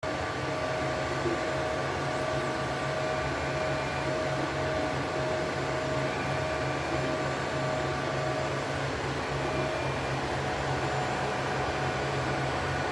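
3D printer running: a steady fan whir and hum, with thin motor tones that come and go as the printer moves.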